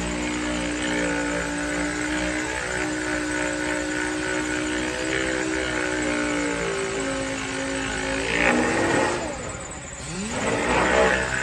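Power sander running under load, its whine shifting slightly in pitch; about eight and a half seconds in it winds down, then spins back up about ten seconds in.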